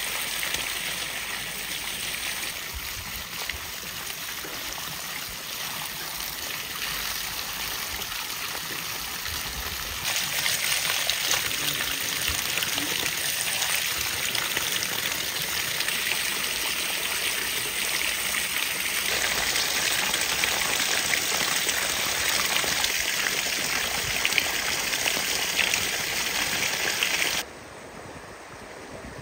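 Water poured and splashing over bunches of fresh dill and parsley in a plastic colander, a steady rushing splash that gets louder about a third of the way in. It cuts off abruptly near the end, leaving a quieter steady hiss.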